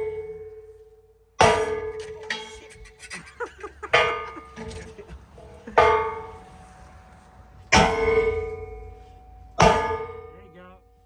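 Heavy hammer blows striking the steel body of an old safe, five strikes about two seconds apart. Each one clangs and rings on in a steady metallic tone that slowly dies away.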